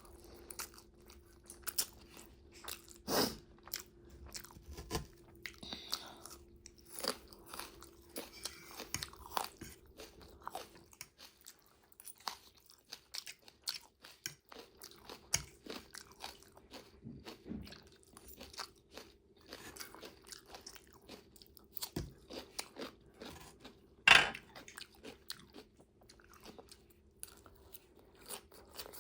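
Close-miked chewing and crunching of food, with short crisp bites scattered throughout; the sharpest come about three seconds in and about five seconds before the end.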